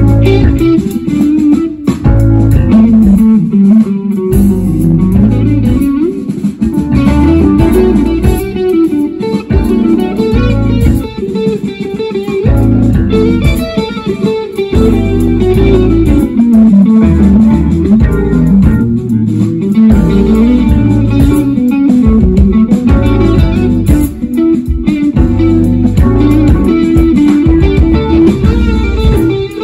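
Jazz-fusion band playing live through a PA: electric guitar, electric bass, drum kit and keyboards, with a busy bass line moving under the guitar. It is recorded on a phone from the audience, so the sound is somewhat rough.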